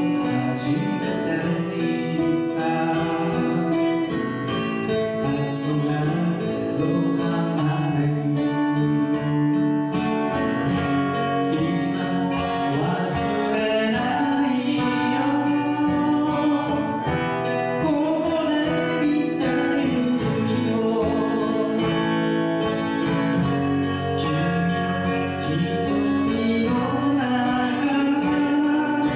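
Folk song played live on acoustic guitars, with a man singing over the strumming.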